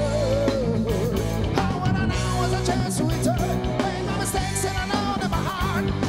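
A rock band playing live: a male lead vocal sung into a handheld microphone over electric guitars, electric bass and a drum kit.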